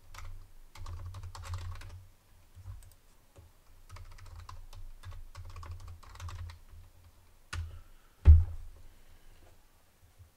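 Typing on a computer keyboard in quick runs of key clicks, with a pause between the runs. Near the end come a sharp click and then a heavy thump, the loudest sound here.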